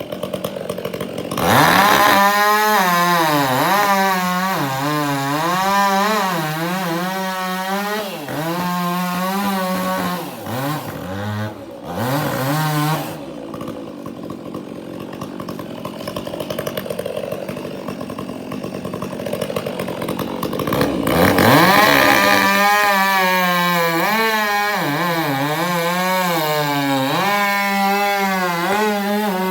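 Chainsaw cutting wood, its engine pitch dipping and recovering as the chain loads up in the cut. It runs hard from about a second and a half in, drops back to a lower, quieter running for several seconds about halfway through, then cuts again from about two-thirds of the way in.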